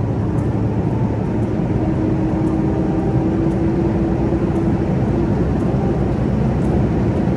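Steady low rumble of a vehicle under way, with a faint hum that comes in about two seconds in and fades out around five seconds.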